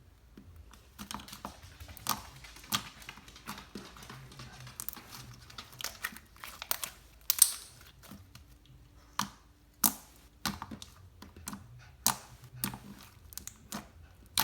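Slime being squeezed and worked by hand, giving irregular sharp clicks and pops with some crinkling in between; the loudest pop comes about halfway through.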